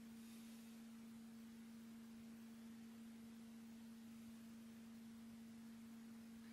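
Near silence: room tone with a faint steady hum, one low tone and a fainter one above it, unchanging throughout.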